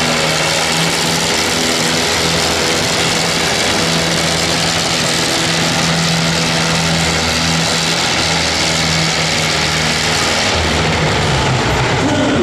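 Minneapolis-Moline tractor engine running hard under load as it pulls a weight-transfer sled, a loud, steady engine note that shifts a little near the end.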